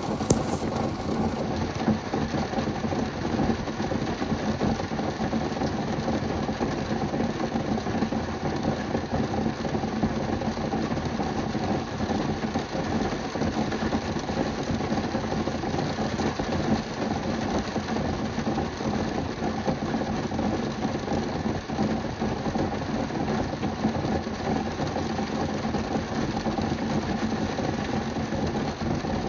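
Rain hitting a car's roof and windshield, heard from inside the car as a dense, steady patter.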